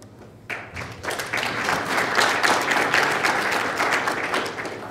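Audience applauding: a crowd's clapping that starts about half a second in, swells, then dies away near the end.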